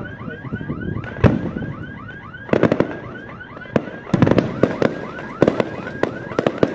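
Aerial fireworks bursting in volleys of sharp bangs, loudest in clusters in the second half. Under them a warbling electronic alarm tone sweeps up and down about four times a second without a break.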